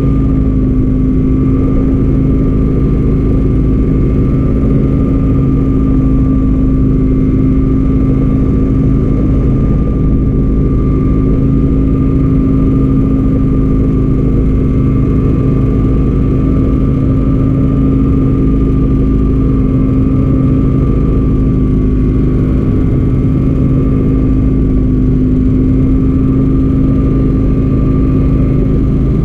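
An engine running at a steady speed, one loud even drone that holds the same pitch throughout.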